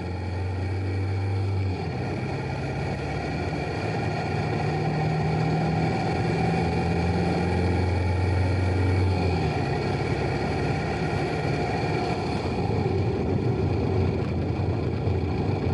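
Turbocharged Lada engine converted from petrol to diesel, running steadily as the car drives, with a diesel rattle. Its pitch shifts about two seconds in and again around nine seconds as the revs change.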